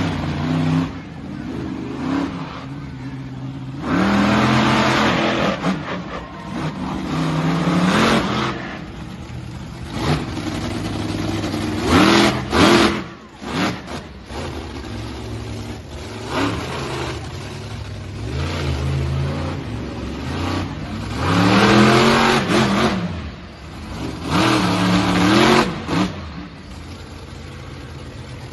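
Monster truck engine revving hard in repeated bursts, each rising in pitch and then falling away, between stretches of lower running.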